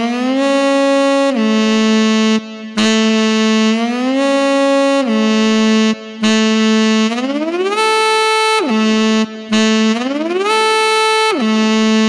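Sampled-and-synthesized saxophone from the Juzisound Total SOLO Sampler, played from a keyboard. A held low note slides up by portamento to a higher note and back down about four times, and the later slides span wider intervals. The interval between the notes sets the type of portamento slide.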